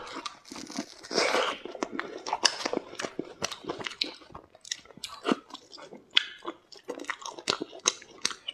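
Close-miked biting and chewing, with many crisp crunches and smacks spread through.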